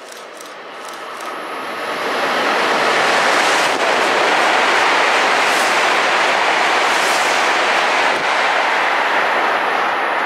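E7/W7 series Hokuriku Shinkansen trainset passing through the station at speed on rain-wet track without stopping. A loud, steady rush of wind and wheel noise builds over about two seconds, holds, then eases slightly near the end.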